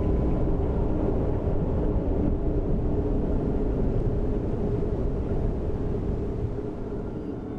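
A steady, low, noisy rumble that slowly fades out near the end.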